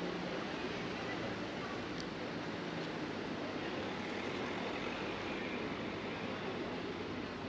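Steady street ambience: an even wash of noise with faint indistinct voices, and a single sharp click about two seconds in.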